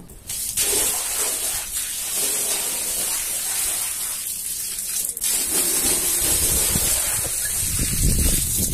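A stream of water gushing down onto a soaked, soapy rug and splashing across it, a steady hissing rush that starts about half a second in and briefly dips about five seconds in.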